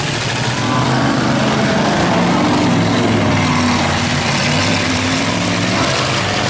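Several demolition derby cars' engines running together, their pitch wavering up and down as the drivers rev and manoeuvre.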